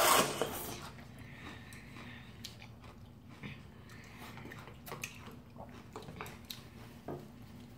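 A loud slurp of udon noodles at the start, then quiet chewing with scattered short smacks and clicks of people eating.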